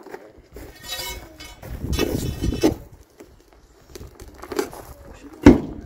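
Large tractor tire on its steel rim being manhandled against the hub, scuffing and knocking irregularly, with a sharp loud thump near the end.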